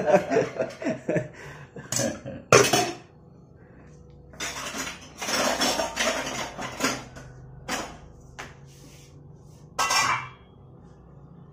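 Metal pots, lids and serving spoons clinking and knocking as food is dished out and cookware is handled on a kitchen counter, in scattered sudden clanks.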